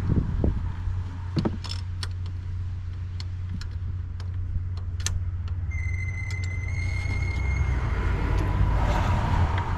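Steady low engine rumble of a vehicle running nearby, with scattered light metallic clicks and taps from spark plugs and tools being handled. About midway a thin steady high tone sounds for about two seconds.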